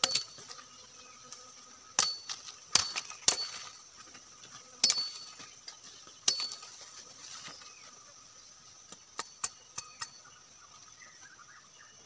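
Machete blade striking wood in sharp chopping knocks, each with a brief metallic ring. About six hard strikes come in the first six seconds, then four lighter, quicker taps near the end.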